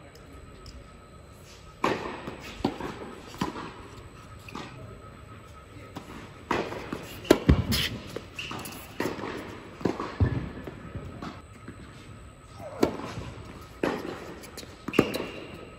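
Indoor tennis rally: sharp pops of racket strings striking the ball and the ball bouncing on the hard court, irregularly spaced and echoing in the large hall, with the loudest hits about halfway through.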